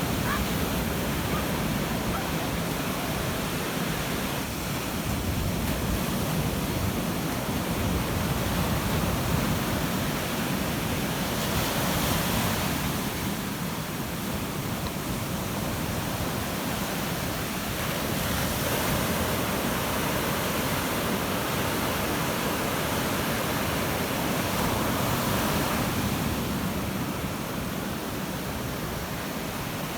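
Ocean surf: waves breaking and washing up the beach in a continuous rush, with swells of hiss as individual waves break about 12, 19 and 25 seconds in. Some wind on the microphone.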